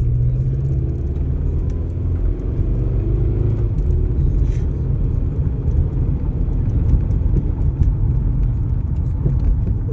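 A 2004 Toyota Corolla's four-cylinder engine and road noise heard from inside the cabin while driving, a deep steady rumble. The engine is running rough with what the owner calls a knocking, shaking sound, and it feels as if it is about to die; a blinking check engine light accompanies it.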